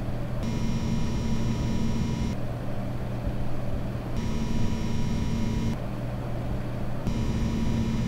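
Graphics-card idle noise switching back and forth every second or two between a low steady hum from the air-cooled Palit RTX 2080 Ti and the EVGA RTX 2080 Ti XC Hybrid. The EVGA's water-cooling pump adds a thin, high whine on top of the hum. This is the pump noise, which the decibel meters do not show.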